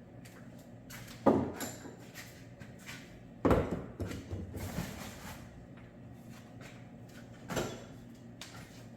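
Hard clunks and knocks of metal parts and tools being handled and set down: three louder knocks, about a second in, about three and a half seconds in and near the end, with lighter clatter after the second.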